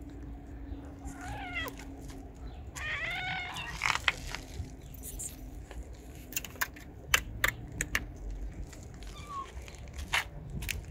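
A cat meows twice in the first few seconds. Then comes a string of sharp metallic clicks and taps as wet food is knocked out of a metal tin onto the ground.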